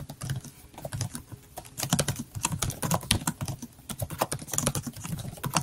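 Computer keyboard being typed on: quick, irregular runs of key clicks broken by short pauses.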